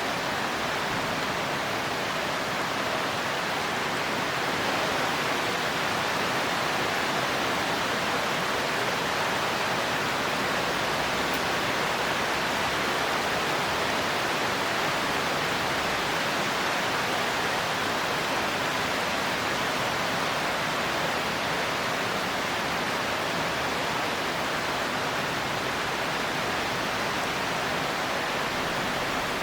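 Steady heavy rain: an even, unbroken hiss with no thunder.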